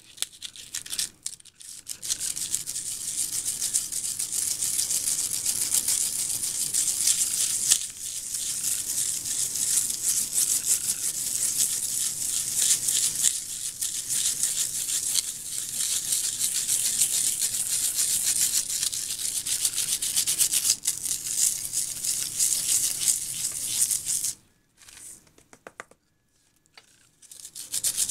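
Fingers rubbing dried salt crystals off a sprayed watercolour-paper background, a continuous scratchy rasping with a fine fast grain. It stops for a few seconds near the end.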